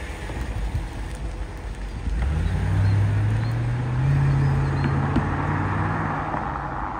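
Mercedes C43 AMG estate's 4.3-litre V8 engine running, its note rising about two seconds in as the car pulls away. The engine note holds steady for a few seconds, then eases off and fades as the car moves into the distance.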